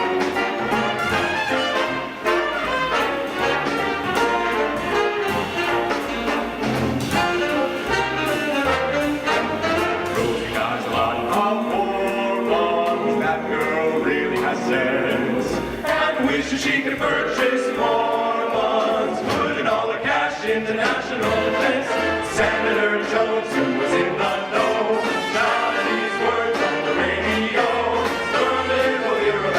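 Brass-led big-band music, with trumpets and trombones playing an instrumental stretch of a 1940s swing tune.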